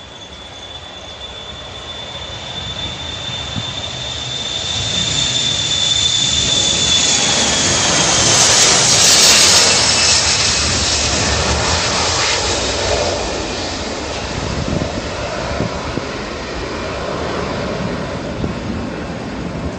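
Boeing 737-400 freighter's CFM56 jet engines at takeoff power during the takeoff roll. The roar builds to its loudest about nine seconds in as the aircraft passes, with a high fan whine that drops in pitch as it goes by, then slowly fades.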